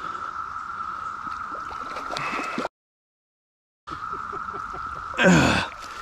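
A steady, high, even drone of a Brood X periodical cicada chorus over the light gurgle of a shallow creek. The sound cuts out completely for about a second a little before the middle. About five seconds in there is a brief loud sound that falls in pitch.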